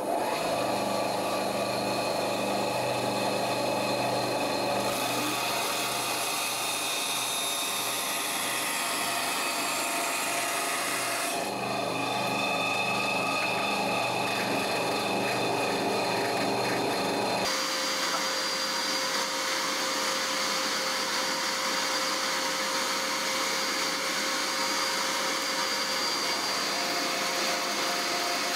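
POWERPLUS X180 bench band saw running steadily: motor hum and blade noise with no pauses. The sound's tone shifts abruptly three times.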